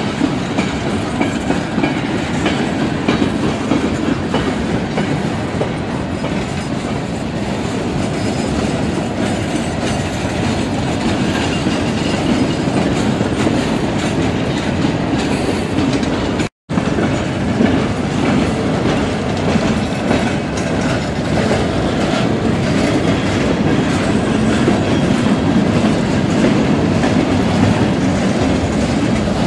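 Freight train rolling past, its cars' wheels clacking over the rail joints. The sound drops out completely for a moment about halfway through, then the train continues.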